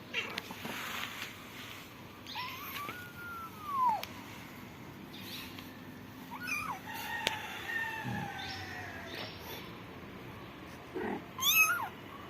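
A cat meowing several times. There is a rising-then-falling meow about two seconds in, a long, slowly falling one from about seven to nine seconds, and a last, loudest meow near the end.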